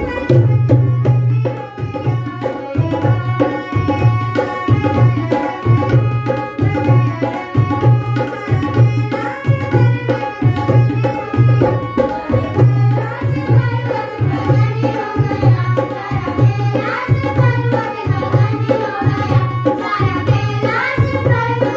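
Devotional bhajan played on tabla and dholak in a steady beat, about one deep drum stroke a second, over held harmonium tones. Voices sing along in the second half.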